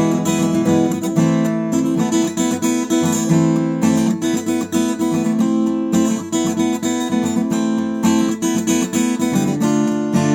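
Newtone Gypsy Road GA45 acoustic guitar played unplugged, heard with its own natural sound and no pickup or amplifier. Strummed chords change every second or two.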